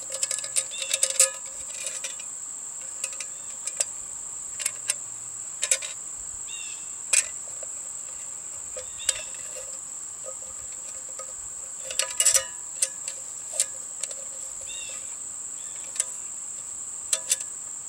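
Sharp metallic clicks and clinks come every second or two as a tin-can bush pot is handled and its wire handles are folded against the can. A steady, high-pitched insect chorus drones behind them throughout.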